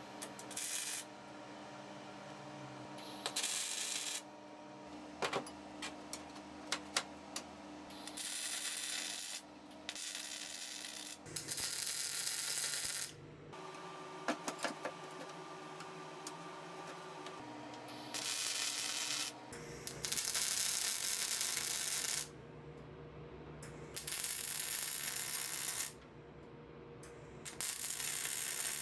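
MIG welder arc crackling in a series of short tack welds on steel, about eight bursts of one to two seconds each with quiet gaps between.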